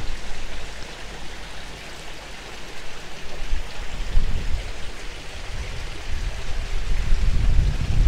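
Small garden waterfall splashing into a koi pond, a steady rushing hiss, with wind buffeting the microphone in low rumbling gusts that grow stronger near the end.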